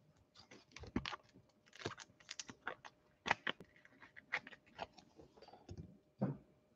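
Irregular light clicks and taps from football trading cards being handled and flipped through.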